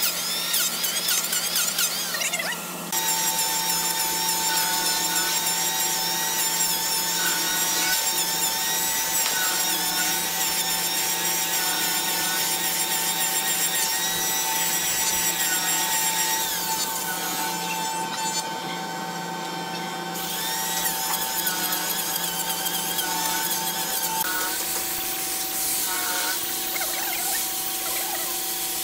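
Handheld electric woodworking power tools running on solid wood. First an electric hand planer shaves the edge of a thick round tabletop; about three seconds in the sound changes abruptly to a steady motor tone, which shifts again near the end.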